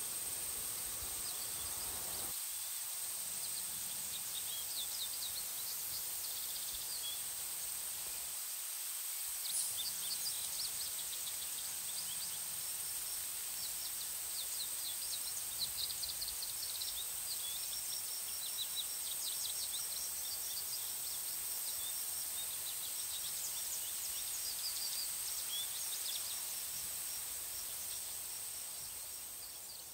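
Outdoor ambience of insects and birds: a steady high-pitched insect drone, with short chirps and trills repeating over it, more of them from about ten seconds in.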